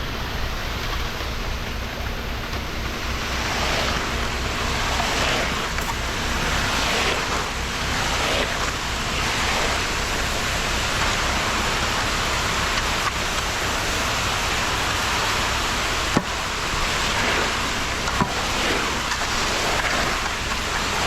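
Concrete mixer truck running during a driveway pour, a steady rushing noise over an even low engine pulse, with two sharp knocks late on.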